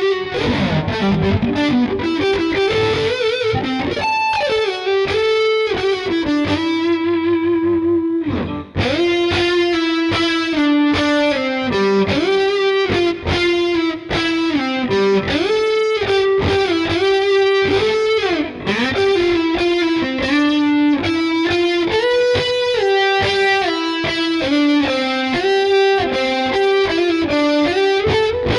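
Schecter C1 Elite electric guitar playing a distorted single-note lead line, with sustained notes and string bends. The playing breaks off briefly about nine seconds in, then goes on.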